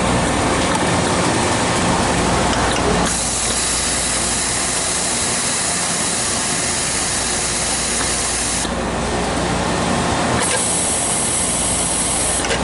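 Royal Master TG12x4 centerless grinder running with its short wire loader cycling. A loud high hiss switches on abruptly about three seconds in and runs for five or six seconds, then comes on again for about two seconds near the end.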